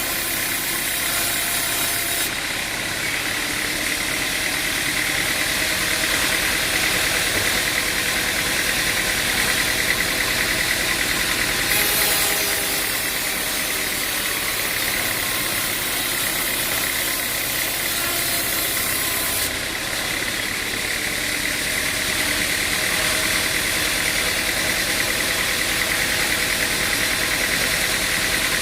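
Engine-driven machine running steadily, with a harsher hiss layered on top that drops away about two seconds in, comes back for several seconds in the middle, then drops away again.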